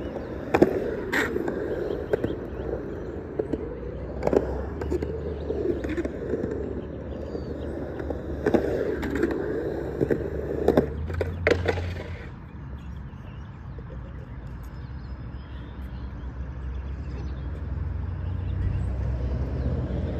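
Skateboard wheels rolling around a concrete bowl, their rumble rising and falling with speed, with several sharp clacks from the board along the way. The rolling stops about twelve seconds in, leaving only a low steady rumble.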